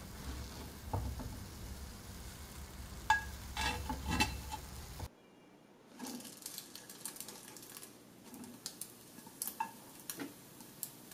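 Butter sizzling in a cast-iron skillet under a slice of French toast. In the first half a low steady hum runs under it and a spatula knocks and scrapes against the pan a few times. After a sudden drop in level about five seconds in, the sizzle is quieter, with scattered sharp crackles and clicks of metal tongs against the pan.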